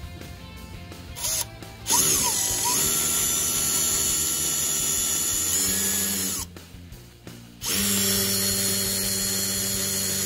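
iBELL BM18-60 20V brushless cordless impact drill boring into a concrete wall with a masonry bit. A short blip about a second in, then a run that spins up with a rising whine and lasts several seconds, a pause of about a second, and a second steady run of several seconds.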